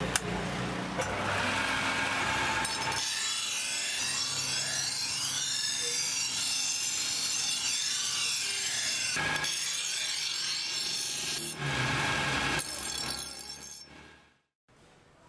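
Belt-driven bench grinding wheel running with a hum, then a steel cleaver blade ground against the stone with a rasping screech that wavers in pitch, broken briefly once. The grinding stops near the end and the sound fades away.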